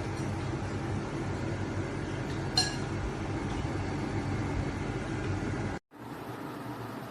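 TCL TAC-12CPA/MZ portable air conditioner running, its fans making a steady hum with air noise. There is one short clink about two and a half seconds in. Near the end the sound drops out for an instant and comes back quieter.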